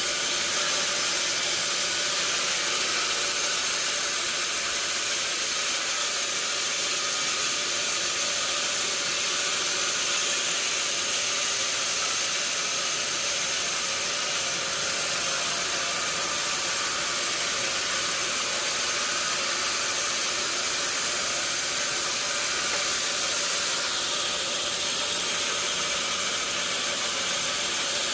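Sawmill machinery running: a steady, even hiss with a faint hum of motors underneath.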